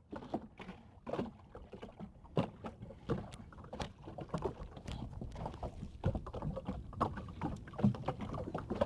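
Water lapping against a small boat's hull, with scattered light knocks and rustles as a catfish is unhooked from a trotline and handled over a plastic bin.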